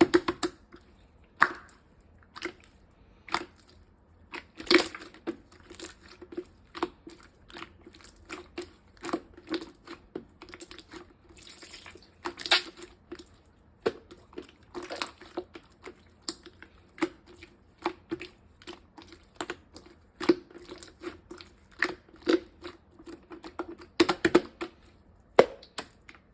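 Clear slime being squeezed and pressed by hand, giving irregular sticky clicks and small pops, several a second, with short gaps between.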